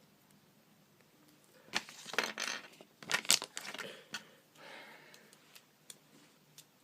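Lego minifigure and its packaging being handled: plastic rustling and clicking in two short bursts about two and three seconds in, and a softer one near five seconds.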